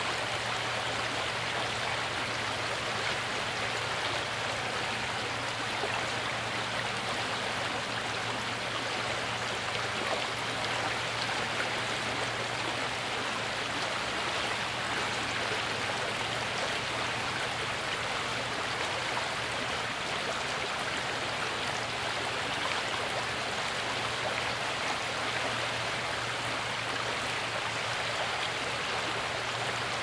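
Shallow stream flowing over a rocky riffle, a steady, unbroken rush of running water.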